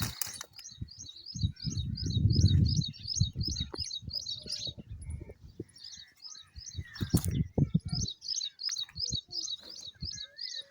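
A small bird chirping in a fast, even series of short high notes, about three a second. The chirps pause briefly near the middle, then resume. Irregular low thumps and rumbling run underneath, loudest about two seconds in.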